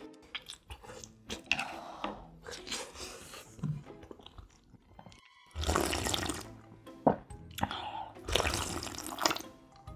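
Slurping cold broth with acorn jelly straight from the rim of a metal bowl, in several wet sips; the loudest pulls come a little past halfway and again near the end.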